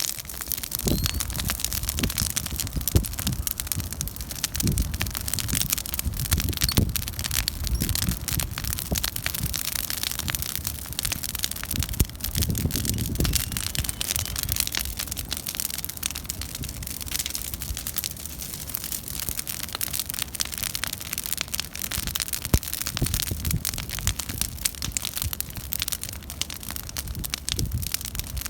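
Bonfire crackling: a dense run of sharp pops and ticks over a low rumble of the flames, with a couple of louder pops.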